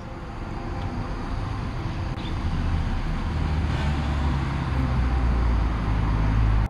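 Cars passing on the road: a low tyre-and-engine rumble that builds steadily as a car approaches, loudest near the end, then cuts off abruptly.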